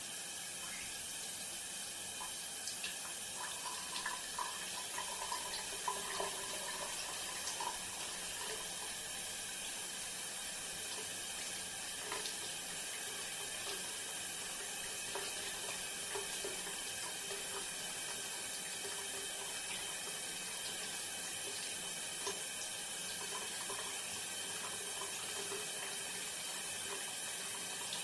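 Bathroom shower running: a steady spray of water, with a few seconds of uneven splashing between about three and eight seconds in.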